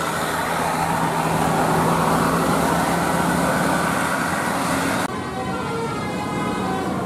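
Bus telolet basuri horn sounding held multi-tone notes over engine and road noise. About five seconds in the sound changes abruptly, the hiss drops away and steady horn tones remain.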